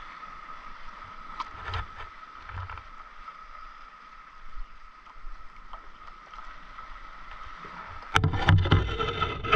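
Faint water lapping against an inflatable stand-up paddleboard, with a few small clicks of gear being handled. About eight seconds in, a much louder rough rumbling noise starts on the microphone.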